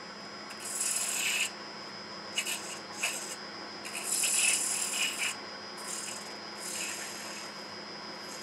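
A spindle gouge cutting a spinning wooden handle blank on a wood lathe, rounding over its end. The cuts come as a series of short hissing, scraping passes, the longest about four seconds in, over the steady hum of the running lathe.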